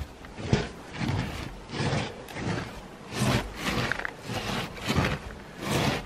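Hiking boots shuffling step by step over an icy wooden boardwalk on a steep slope, a scuff about every half second.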